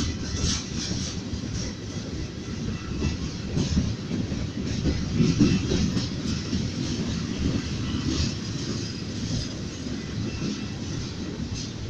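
Freight train cars rolling past with a steady low rumble, the wheels clicking repeatedly over the rail joints.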